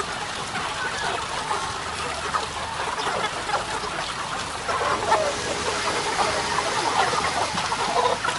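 A large flock of broiler chickens calling all at once: a dense, steady chatter of overlapping peeps and clucks.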